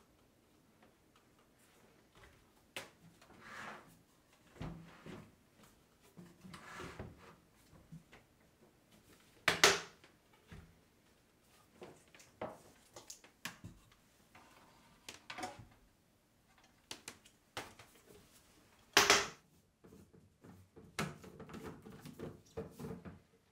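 Plastic and metal parts of a Ninja blender being handled on a countertop: scattered clicks and knocks, with two sharper knocks about ten and nineteen seconds in. Near the end comes a run of small clicks as a lid is twisted onto a plastic blending cup.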